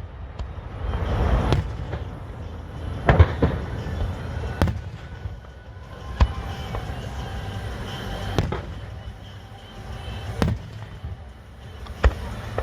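Fireworks going off: a string of separate bangs about every one to two seconds, each trailing off in an echo.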